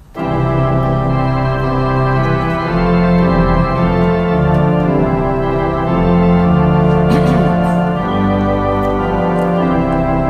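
Church organ playing a hymn introduction in sustained, held chords that change every second or two, starting suddenly.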